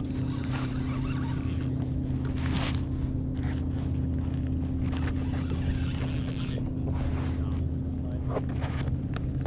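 Steady low drone of an idling engine, unchanging throughout, with a few faint clicks and a short hiss about six seconds in.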